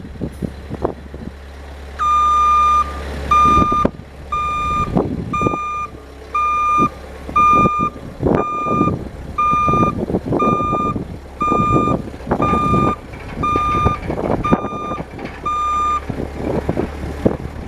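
Bobcat S175 skid steer's backup alarm beeping, a steady high beep about once a second, with twelve or so beeps that start about two seconds in and stop shortly before the end. Under it the machine's engine runs steadily, with irregular rough bursts of noise from the machine working.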